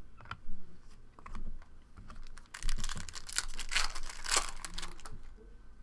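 Scattered clicks, then about two and a half seconds of dense crinkling and clicking from trading-card packs and their foil wrappers being torn open and handled.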